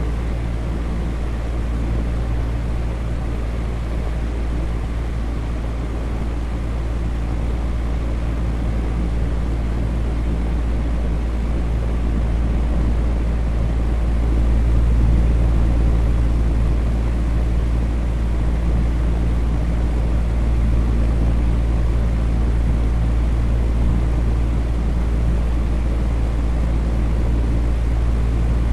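Electric fan running steadily: a low motor hum under an even rush of air, swelling slightly about halfway through.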